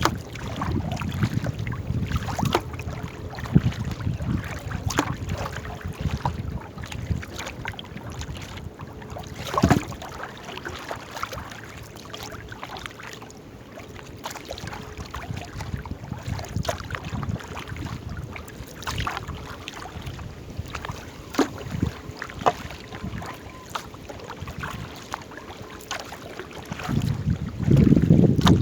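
Small paddled boat on the water, with wind rumbling on the microphone and scattered knocks, likely paddles against the hull. A stronger gust buffets the microphone near the end.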